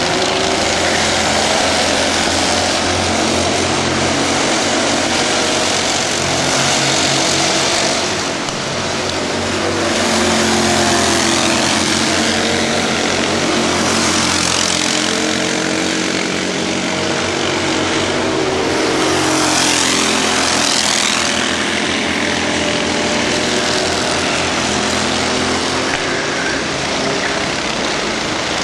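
Racing kart engines of a pack of karts on track, a high-pitched buzz whose pitch rises and falls as the drivers accelerate and lift through the corners. It swells a few times as karts pass close.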